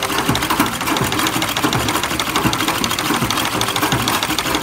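Treadle-powered manual sewing machine stitching cloth: a rapid, steady mechanical clatter as the needle runs up and down.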